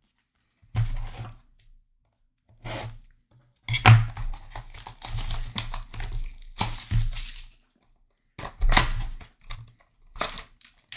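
Cardboard Panini Prizm Choice trading-card box being torn open by hand: a series of separate tearing and crackling bursts, densest from about four to seven seconds in, with a sharp crack about four seconds in.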